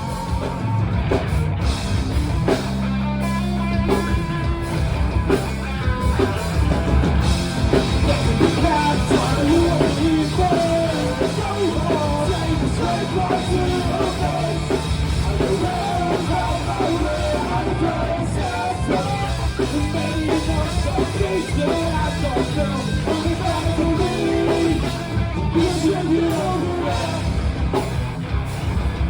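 A rock band playing live, with singing over electric guitars, bass and drum kit.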